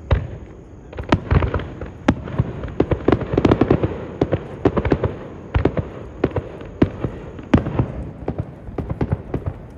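Fireworks going off in a rapid, irregular string of sharp bangs and crackles, several a second, thickest about three to four seconds in.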